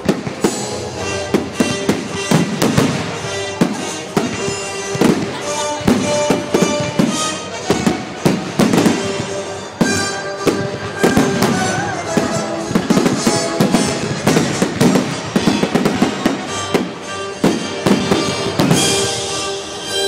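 Aerial firework shells bursting in quick succession, many sharp bangs and crackles, with music playing along underneath.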